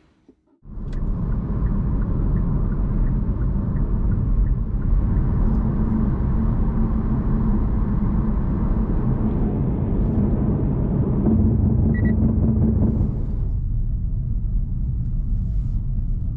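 Loud, steady low rumble of a vehicle in motion. It starts abruptly after a brief silence, and its higher hiss drops away about three-quarters of the way through.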